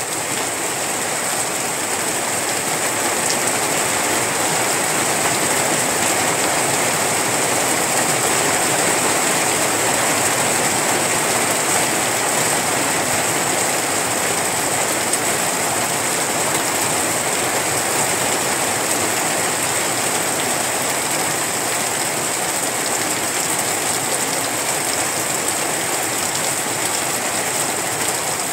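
Heavy rain falling steadily, a dense even hiss that swells slightly over the first few seconds.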